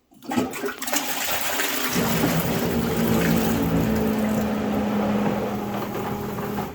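Liberty Pumps Ascent II upflush toilet flushing: water rushing, then about two seconds in a steady motor hum joins, the macerator pump running, until it cuts off near the end. Kind of loud.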